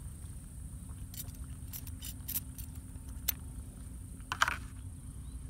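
Steady low rumble with a scattering of small, sharp clicks and taps from handling the lidded paper noodle cup and the phone. The loudest tap comes a little over four seconds in.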